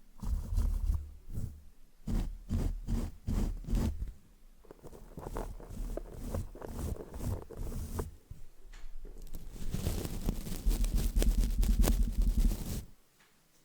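Paintbrush bristles brushed directly over a microphone, a scratchy swishing with a deep rumble beneath. There are a few quick separate strokes near the start, lighter scraping in the middle, then a denser, louder stretch of brushing that stops shortly before the end.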